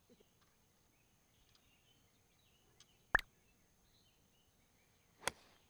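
Golf iron striking the ball on a tee shot, a sharp crack near the end, after a separate loud sharp click about three seconds in. Faint bird chirps and a thin steady high whine sit underneath.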